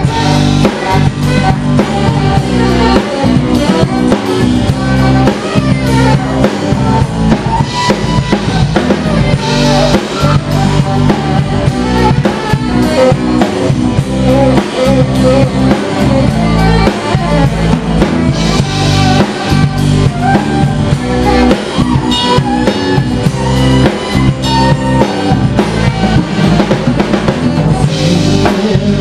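Live band music with the drum kit prominent: bass drum, snare and rimshots driving a steady beat under bass and guitar.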